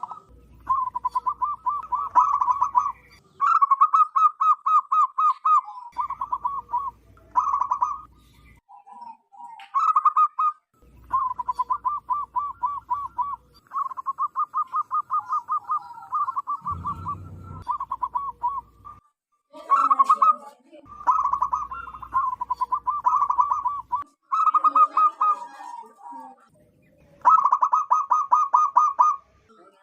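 Zebra dove cooing loudly in repeated bouts of rapid, evenly pulsed notes, each bout lasting one to three seconds with short pauses between them.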